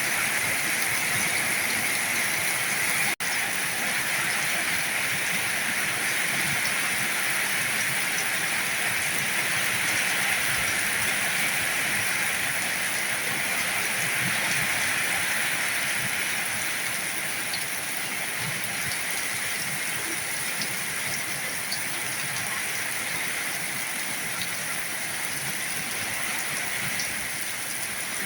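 Heavy rain falling steadily, a dense even hiss. There is a split-second dropout about three seconds in.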